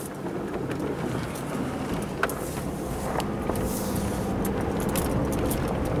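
Vehicle engine and tyre noise heard from inside the cab while driving on a snowy road, gradually getting louder as it picks up speed, with a few light clicks.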